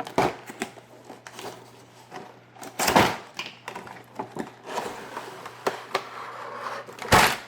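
Cardboard and plastic packaging of a pack of Hot Wheels die-cast cars being handled: scattered clicks and rustling, with two louder knocks, about three seconds in and near the end.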